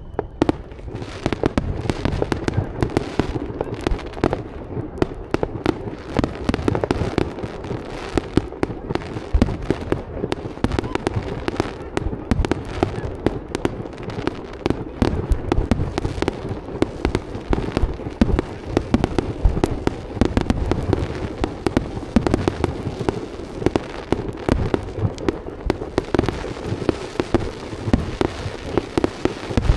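Fireworks display going off in rapid succession: a dense, unbroken run of bangs and crackles, many each second.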